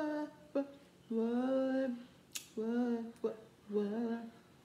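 A woman singing a few long, held notes of a song to herself, with a sharp click between notes about halfway through.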